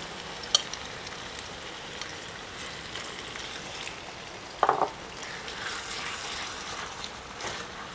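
Meat sizzling in hot oil with fried shallots in a small clay pot, stirred with a utensil. A sharp click about half a second in and a brief louder scrape about halfway through.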